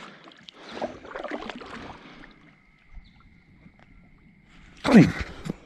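Kayak paddle strokes dipping and splashing in lake water, dying down after about two seconds. Near the end, a short, loud voice-like sound that falls in pitch.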